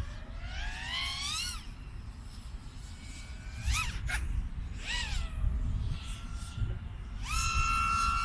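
FPV freestyle quadcopter's brushless motors and props whining, the pitch following the throttle. A rising whine in the first second and a half, two quick up-and-down blips around four and five seconds in, then a held steady whine near the end.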